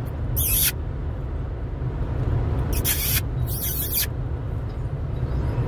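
Steady low rumble of a car's road and engine noise heard inside the cabin, with three short hissing swishes: about half a second in, near three seconds, and from three and a half to four seconds.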